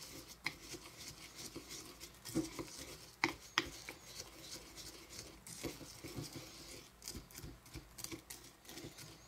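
Faint scraping and rustling of a utensil stirring moist cookie crumbs with half-and-half in a glass bowl, with a few light clicks against the bowl.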